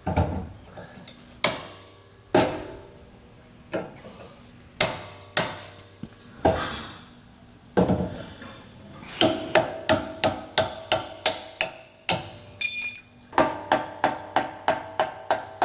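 Hammer striking a steel pry bar wedged behind a welded steel bracket on a trailer frame rail, sharp metal-on-metal blows that ring; the blows are bending the bracket to break it off. They come a second or more apart at first, then from about nine seconds in as a quick run of about three a second.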